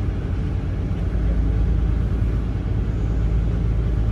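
A boat's engine running steadily: a loud, low, even rumble.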